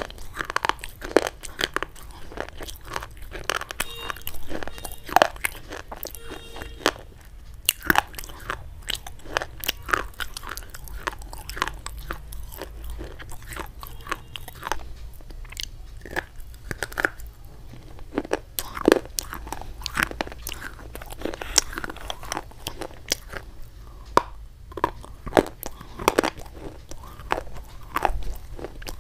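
Close-miked crunch ASMR: hard, brittle white chalk-like sticks being bitten and chewed, giving repeated sharp snaps and crackles at an uneven pace.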